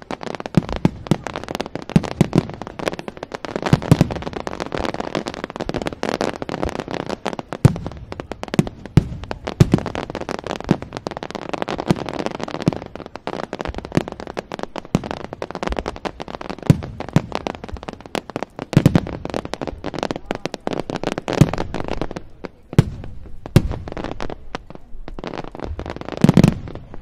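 Large fireworks display: aerial shells bursting in rapid succession, dense bangs over continuous crackling, thinning out in the last few seconds.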